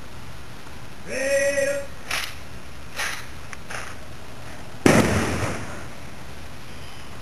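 Rifle salute by a uniformed honor guard: a drawn-out shouted command about a second in, a few light clicks, then one sharp rifle volley about five seconds in with an echoing tail.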